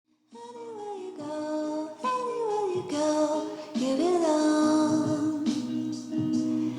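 Background music with a sung vocal line, starting a moment in.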